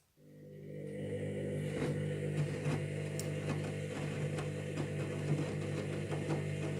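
Candy washing machine in its pre-wash: a motor starts up, rising over about a second to a steady hum with light irregular clicks.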